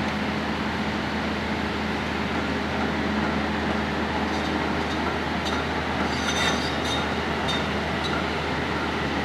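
Heavy construction machinery running steadily with a low engine hum, with a few short, high metallic squeals and clanks in the second half.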